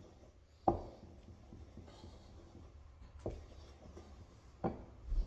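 Kitchen handling sounds: light scraping and four sharp knocks from a utensil and a mixing bowl of pancake batter being handled.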